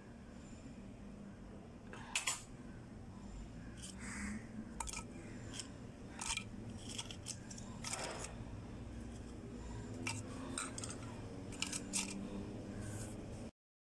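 Papadam being snapped and crumbled by hand into a plastic chopper jar: irregular dry crackles and snaps, the sharpest about two seconds in and near the end.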